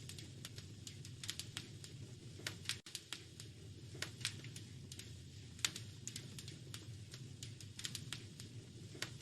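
Wood fire crackling in a fireplace: irregular sharp pops and snaps over a steady low rumble, with a brief dropout about three seconds in.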